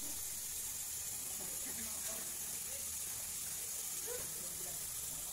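Steady high-pitched hiss with faint, scattered murmurs of distant voices underneath.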